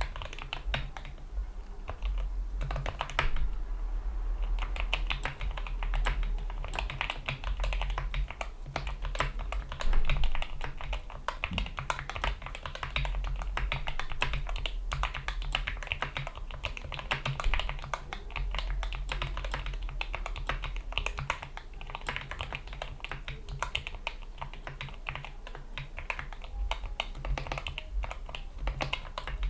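Typing on a GK61 keyboard with lubricated Gateron Yellow optical linear switches, PBT keycaps and O-ring dampeners: a steady, rapid run of keystrokes, with one louder clack about ten seconds in.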